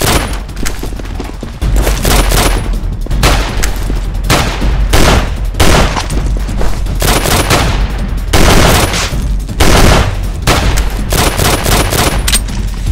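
Gunfire sound effects: a long, dense exchange of rapid shots in irregular bursts, over a steady low rumble that comes in about a second and a half in.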